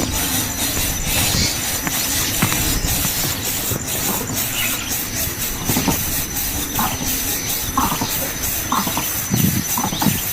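Steady loud hiss throughout, with a few short calls from begging nestlings in the second half.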